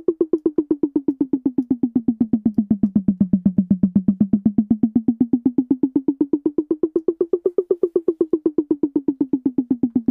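A sampled tom-tom drum hit retriggered in a fast even loop, about eight hits a second. Its pitch slides slowly down, rises back up about two thirds of the way through, then falls again. The pitch is moved by automation to make the drum seem to rise and move around in space.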